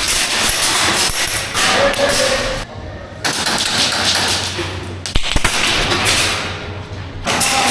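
Airsoft gun firing long full-auto bursts of rapid cracks, breaking off briefly about three seconds in and again near the end.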